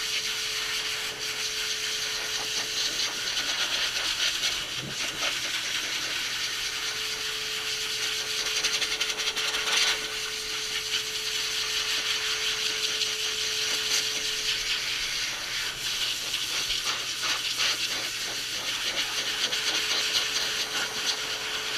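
Dog grooming dryer blowing air from its hose onto a Bedlington terrier's wet coat: a steady rushing hiss, with a faint hum that fades in and out.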